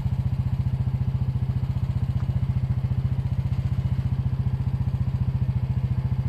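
Vehicle engine idling steadily, a fast even low pulsing.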